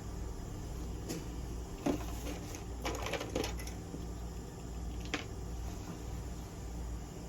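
Handling noises: a few sharp clicks and light clatters of small objects, with a quick run of them about three seconds in, over a steady low hum.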